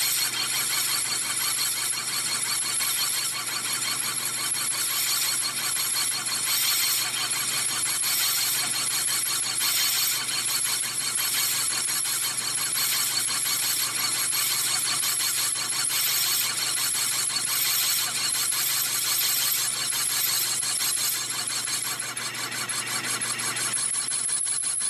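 Metal lathe cutting a large steel clutch hub, the tool squealing steadily as it takes the cut, over a steady low hum from the lathe.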